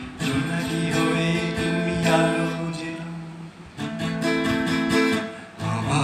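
Acoustic guitar strummed chords, one strum about every two seconds, each chord left to ring and fade before the next.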